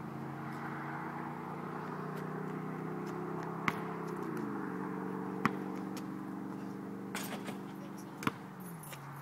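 A steady engine hum with several pitched tones that step down in pitch twice, with a few sharp knocks of a basketball bouncing on the outdoor court.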